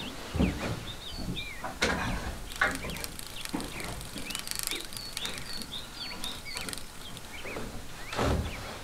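Small songbirds chirping throughout, with a few irregular wooden knocks and thumps from a wooden hand loom being worked.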